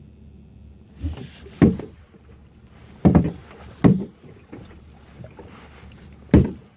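Kayak paddling: about five loud, sharp knocks at uneven intervals as the paddle strokes and bumps the kayak, over a low steady background.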